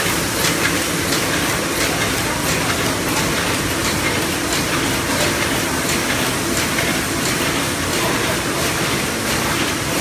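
LH-800E automatic die-cutting machine running: a steady mechanical din with a regular ticking clatter as it feeds and cuts sheets.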